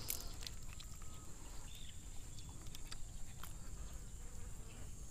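A steady, high-pitched insect drone, with faint scattered clicks over a low background rumble.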